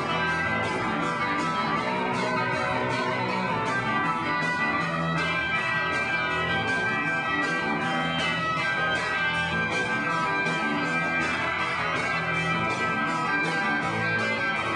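A rock band playing live, guitar-led, continuous and steady in loudness.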